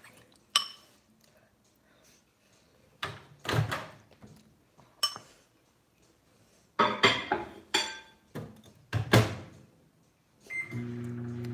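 A clink, then thunks and clatter as an over-the-range microwave's door is opened and shut and its keypad pressed. About a second before the end the microwave starts running with a steady hum, reheating food that was not yet hot enough.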